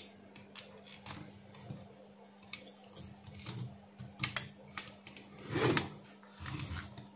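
Scattered light clicks and knocks of an aluminium heatsink and circuit board being handled and fitted together, with a louder clatter about five and a half seconds in, over a steady low hum.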